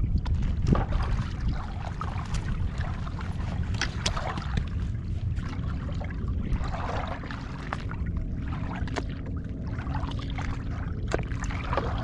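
Small waves slapping and trickling against a kayak hull, with wind buffeting the microphone as a steady low rumble.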